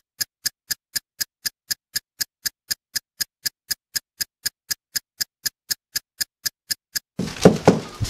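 A ticking sound effect: short, sharp ticks at an even pace of about four a second, in the manner of a clock or countdown timer. About a second before the end, the ticking stops and a louder clatter of knocks begins.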